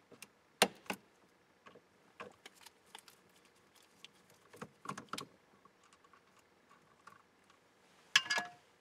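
Screwdriver taking Torx screws out of a 1998 Chevy Lumina's steering column to free the turn signal switch: irregular light clicks and ticks of metal and plastic, with a louder clatter near the end.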